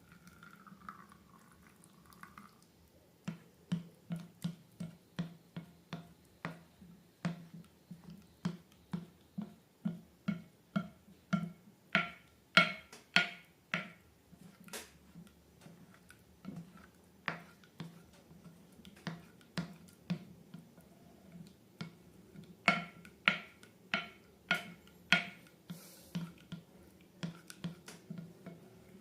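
Slime being squeezed and poked, making a long run of wet clicking pops about twice a second.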